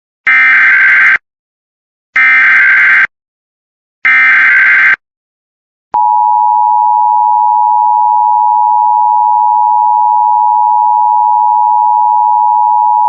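Emergency Alert System SAME header: three bursts of digital data tones, about a second each, at even spacing. About six seconds in, the two-tone EAS attention signal (853 and 960 Hz together) starts suddenly and holds steady. The sequence opens an emergency alert, here a practice demo activation.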